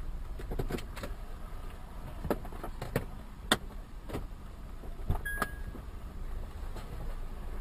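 Low steady rumble of an idling car, with scattered sharp clicks and knocks, about eight in the first five and a half seconds, and a short high beep a little after five seconds in.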